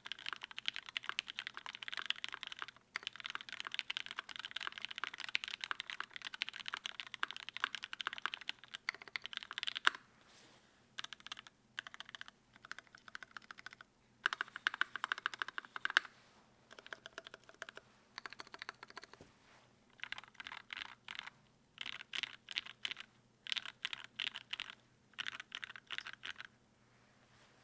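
Typing on a Cannonkeys Savage65 mechanical keyboard with lubed Gateron Yellow linear switches fitted with UHMWPE stems, an FR4 plate and GMK keycaps. Rapid continuous keystrokes for about the first ten seconds, then shorter bursts of typing broken by brief pauses.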